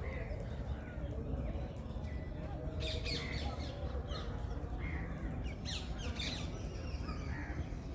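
Small birds chirping, many short high chirps coming thick and fast from about three seconds in, over a steady low background rumble.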